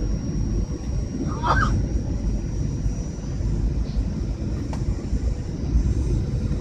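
Steady low rumble of a passenger airliner heard from inside the cabin, with a thin high whine that fades partway through and a brief chirp-like sound about a second and a half in.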